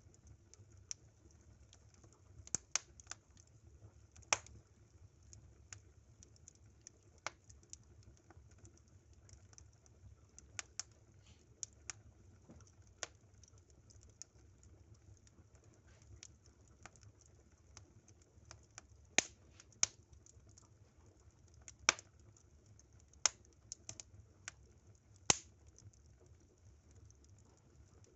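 Burning firewood crackling, with irregular sharp pops and snaps, several louder ones in the second half, over a low steady rumble.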